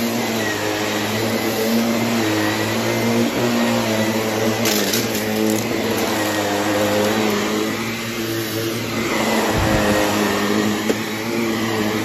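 Shark upright vacuum cleaner running steadily as it is pushed over a rug, its motor hum wavering slightly in pitch. A brief crackle comes about five seconds in.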